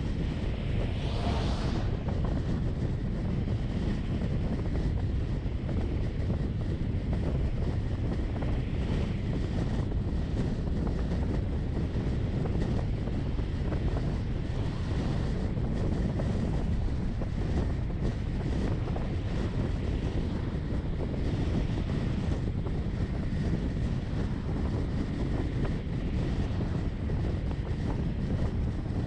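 Steady road and wind noise from a moving vehicle: a low rumble with wind buffeting the microphone. A brief higher hiss swells and fades in the first two seconds.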